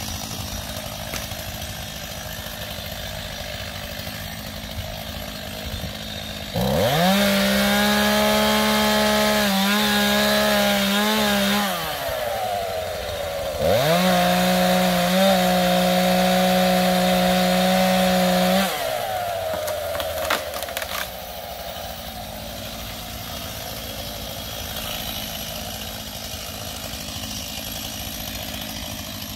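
STIHL MS 251 two-stroke chainsaw idling, then opened to full throttle for two cuts of about five seconds each into a tree trunk, the first starting about six seconds in. Its pitch wavers as the chain bites the wood. Near the two-thirds mark it drops back to idle.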